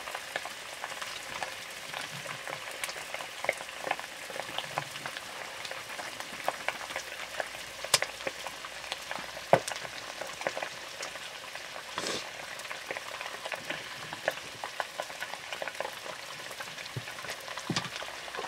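Wood fire burning under a pot of steaming water: a steady hiss with many small crackles and a few sharper pops.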